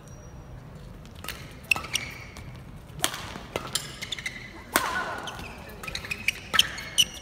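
Badminton rally: rackets striking the shuttlecock again and again at irregular intervals, with short squeaks of shoes on the court mat between the hits.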